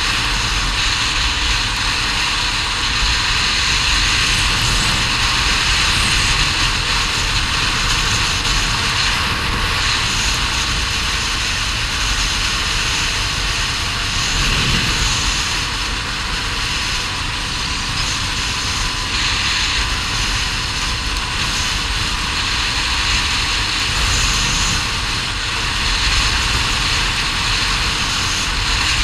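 ATV engine running steadily while riding along a gravel track, with a constant rush of wind and tyre noise over the handlebar-mounted camera's microphone.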